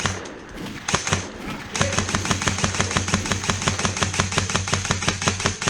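Airsoft electric rifle shooting: a few single shots, then about two seconds in a long full-auto burst of rapid, evenly spaced cracks over the steady whine of its gearbox motor.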